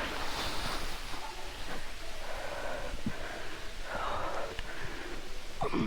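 A person breathing heavily from the exertion of climbing a steep mountainside, with about three loud breaths.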